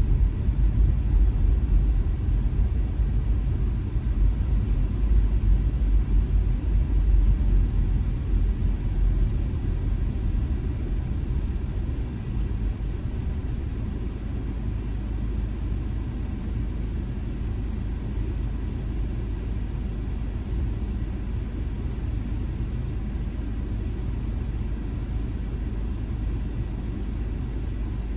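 Low road and engine rumble heard from inside a moving car. It eases off about halfway through into a steadier, quieter rumble as the car comes to a stop in queued traffic.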